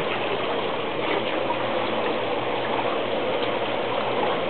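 Steady rushing of churning water in a spa (hot tub).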